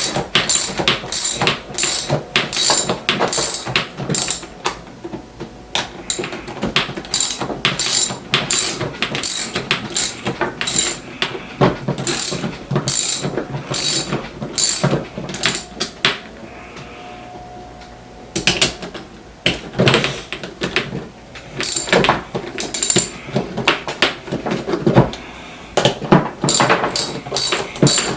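A roller-skate tool tightening the axle nuts on the skate wheels: rapid metal clicking in irregular runs, with a short lull about sixteen seconds in.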